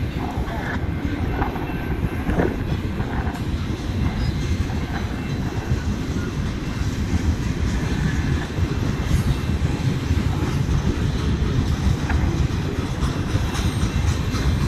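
Freight cars of a long mixed freight train rolling past: a continuous heavy rumble of steel wheels on the rails.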